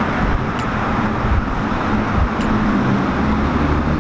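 Steady low rumble of motor vehicles, with two faint ticks about half a second in and two and a half seconds in.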